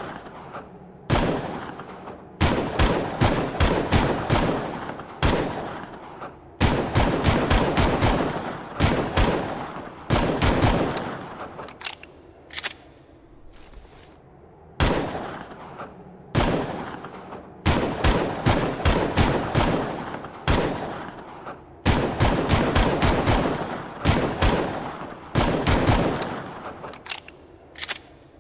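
Longslide pistol shots as a sound effect, fired in rapid strings of several shots a second, each shot with an echoing tail, with short pauses between strings.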